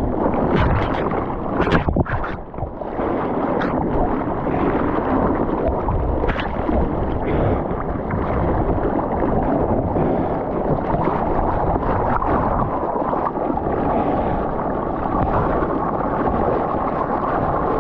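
Ocean surf water rushing and splashing close to the microphone, with wind noise; a few sharp splashes in the first two seconds.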